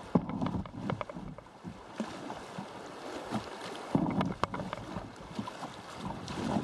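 Kayak paddling on a river: paddle blades dipping and splashing in the water in irregular surges, with short sharp splashes about a quarter second in and again about four seconds in.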